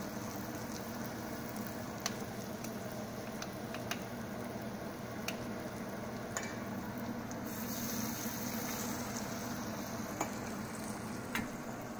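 Falafel deep-frying in hot oil in a saucepan, a steady sizzle, with a few light metal clicks from the falafel scoop.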